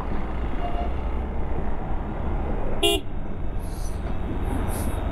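A single short vehicle horn beep about three seconds in, over the steady low rumble of riding in highway traffic.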